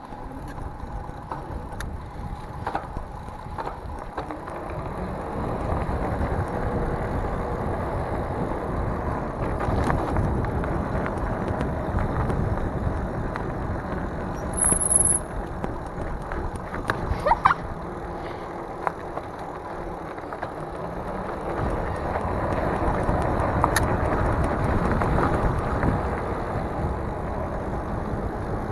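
Ride noise from a Mongoose Dolomite fat-tire e-bike: wind rushing over the handlebar-mounted microphone and tyre rumble over grass and then pavement, with scattered rattles and clicks from the bike.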